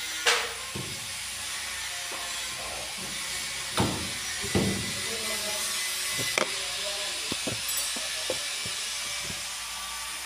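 Scattered knocks and clicks of a square plastic LED ceiling panel light being handled and pushed into its ceiling cut-out, over a steady hiss. The sharpest knocks come just after the start, twice around the middle, and once more a little later, followed by lighter ticks.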